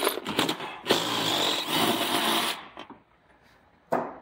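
Cordless impact driver running for about a second and a half, backing out a rear-seat mounting bolt, with a few clicks before it and a single sharp knock near the end.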